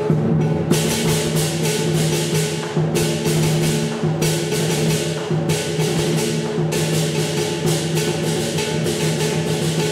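Southern lion dance percussion: a lion drum, rapidly clashing cymbals and a ringing gong playing a driving rhythm. The cymbal clashes break off for a moment about three, four and five and a half seconds in.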